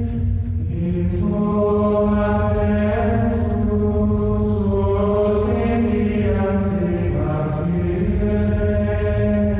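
Chant-like music: long held vocal notes over a deep, steady drone, the held notes changing pitch every second or two.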